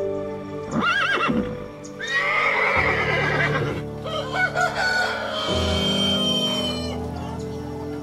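A horse whinnies briefly about a second in, then a rooster crows in long calls, over background music.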